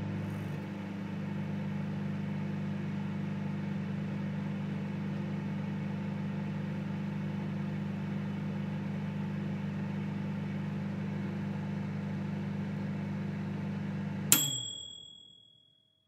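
Microwave oven running with a steady low hum, then shutting off about fourteen seconds in with a single ding of its end-of-cycle bell that rings out and fades, signalling the cooking is done.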